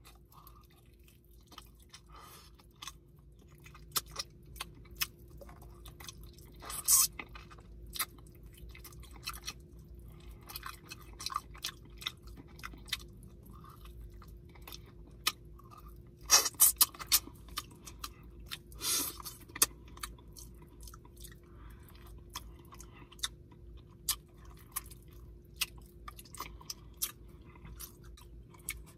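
Close-up chewing and wet mouth clicks of a man eating oxtail off the bone with his fingers, with a few louder bursts about 7, 17 and 19 seconds in.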